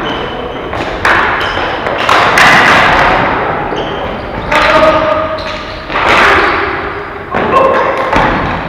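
Ball hockey play in a rink: about six sharp knocks and bangs of sticks and the plastic ball against the boards, each ringing on briefly in the hall, with players' voices calling in between.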